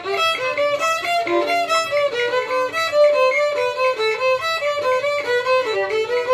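Solo violin played with the bow, a steady run of short notes in the middle register as a practice piece.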